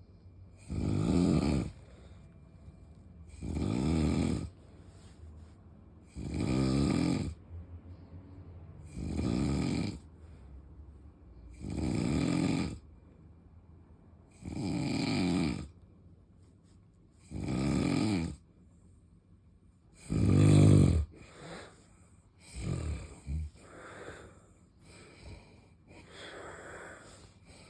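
Loud, regular snoring, one deep snore every three seconds or so, eight in a row. About three quarters of the way through it breaks up into shorter, quieter, irregular breaths.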